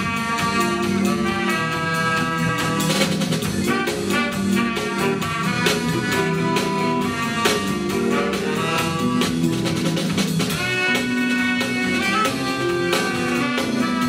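Instrumental music with a steady beat and held melody notes.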